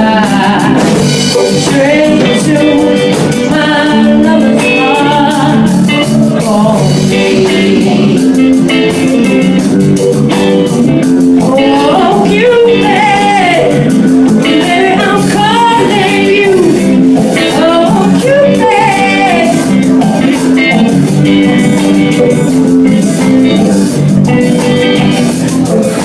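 A woman singing lead into a microphone with a small live band behind her, guitar and drums, as one continuous song. The recording is loud.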